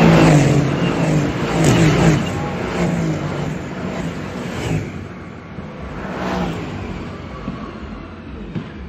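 A string of Mercedes-AMG GT cars passing one after another, their V8 engines loud at first and fading as the last cars go by, with the engine note swelling as each car passes.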